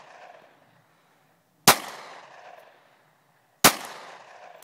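Two gunshots about two seconds apart, each sharp crack trailing off in a short echo.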